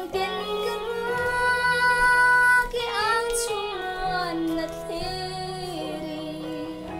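A young girl singing solo over a soft musical accompaniment, holding long steady notes, with a slide in pitch about three seconds in.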